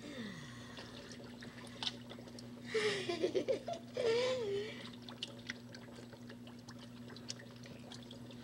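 Water splashing and dribbling in a dolphin tank as a hand moves through it, with a woman laughing in two short bursts about three and four seconds in. A steady low hum runs underneath.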